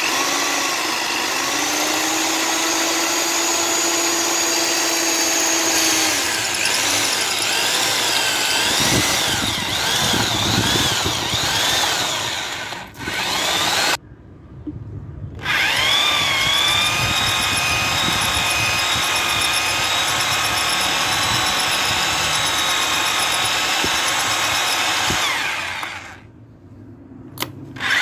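Rotary hammer drill boring a hole into a stone floor slab, its motor whine wavering in pitch as the bit bites. It stops for about a second and a half around halfway, starts again, and drops off briefly near the end.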